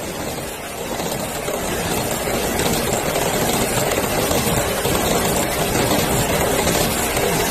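Automatic PP woven bag cutting and sewing machine running at high speed: a steady, dense mechanical noise at an even level.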